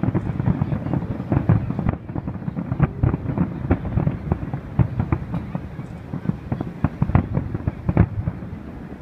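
Fireworks shells bursting in quick succession: a dense run of booms and crackling, several a second, with a couple of louder booms near the end.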